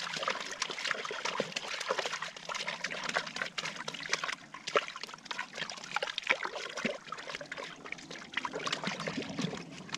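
A hooked brook trout thrashing at the top of an ice-fishing hole, with irregular splashing and sloshing of water.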